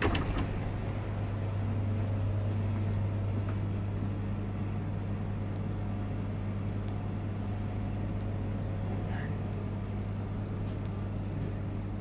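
A steady low machine hum, such as an appliance or air-conditioning unit makes, with one sharp knock right at the start.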